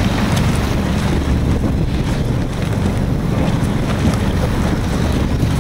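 Heavy wind buffeting the microphone on an inflatable speedboat running fast over choppy sea, with the rush of water and the boat under way beneath it.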